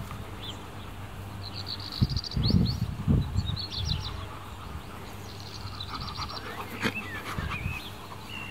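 Adult dog panting while a puppy tussles with it, with low rustling thumps. Rapid high bird chirps come twice.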